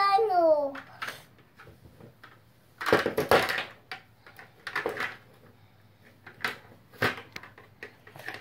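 Plastic shape-sorter cube and its plastic shape blocks knocking and clattering as they are handled, with a longer rattle about three seconds in and single clicks after it.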